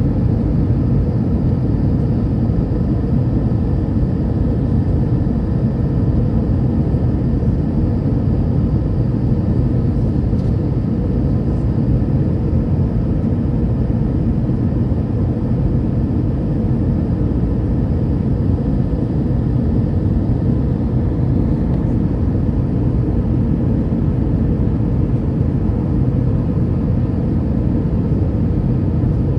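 Steady cabin roar inside an Airbus A319, heard from a window seat over the wing on descent to landing: engine and airflow noise as an even, deep rumble that does not change.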